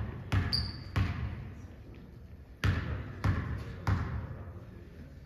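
A basketball dribbled on a hardwood gym floor: two bounces, a short pause, then three more bounces about 0.6 s apart, each ringing on in the hall's echo.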